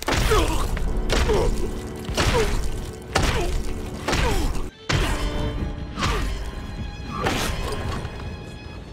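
Anime fight sound effects: a series of heavy stabbing blows, about one a second and eight in all, each a hard thud, over background music.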